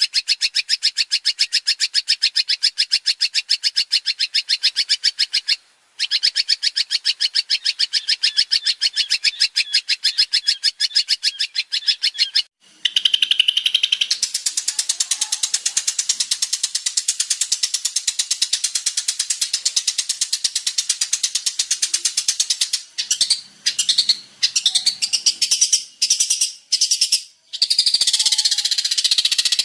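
Long-tailed shrike (cendet) singing: a fast run of rapidly repeated high notes with two brief pauses. About halfway through it turns into a denser, more varied song, broken by several short gaps near the end.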